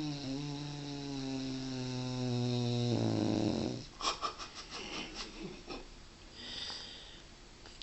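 Sleeping dog snoring: one long droning snore that slowly sinks in pitch and turns rattly near its end. It is followed by a run of short clicking sounds and a soft, hissing breath.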